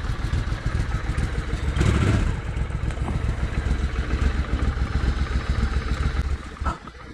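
Cruiser motorcycle engine idling, briefly louder about two seconds in.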